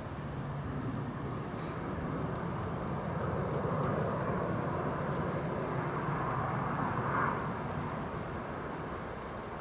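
Airbus A350's Rolls-Royce Trent XWB jet engines running as the airliner rolls along the runway during a touch-and-go: a steady jet rumble and hiss that swells over the first few seconds and eases near the end.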